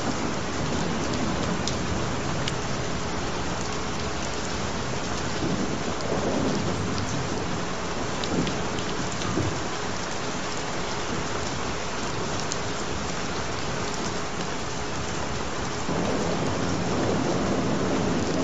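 Steady rain falling, with gentle thunder rumbling low underneath. The thunder swells about six seconds in and again near the end.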